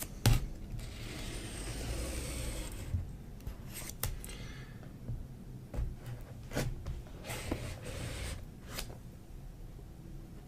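Clear plastic shrink-wrap on a laptop box being slit with a knife and pulled loose: a long crinkly rustle of film about a second in, with sharp clicks and further rustling of handling later on.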